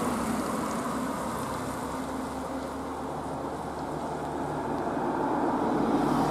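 Passing car traffic on a road. One car drives away over the level crossing, and another car's engine comes up louder near the end as it approaches.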